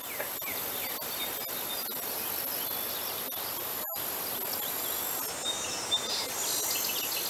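Outdoor nature ambience: a steady high insect drone over a soft hiss, with short chirps scattered through. The sound cuts out for an instant near the middle.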